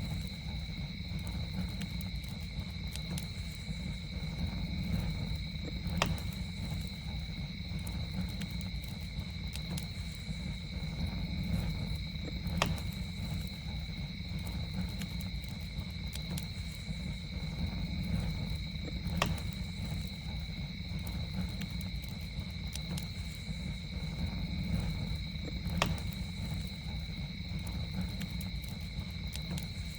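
Campfire crackling over a low, steady rumble of the flames, with a sharp pop about every six and a half seconds and fainter ticks between. A continuous high, even insect drone, like crickets, runs underneath.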